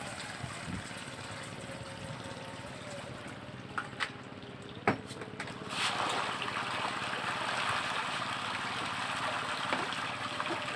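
Farmed fish in a floating net cage splashing and churning at the surface as feed is thrown to them, a dense steady splashing that starts about six seconds in. A few sharp taps come shortly before it.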